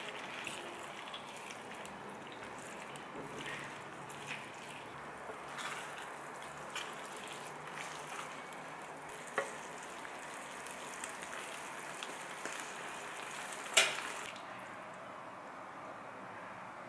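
Pasta being tossed through a creamy tomato sauce that is simmering in a frying pan, with a steady low sizzle, wet stirring and scattered light clicks of a silicone spatula against the pan. A single sharp knock comes about fourteen seconds in, and the sizzle then fades back.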